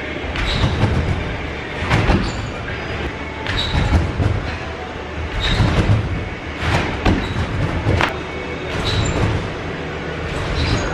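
Gymnastics trampolines in use: each bounce lands on the bed with a heavy thump and rattle, repeating every one to two seconds, with two trampolines going at once in an uneven rhythm.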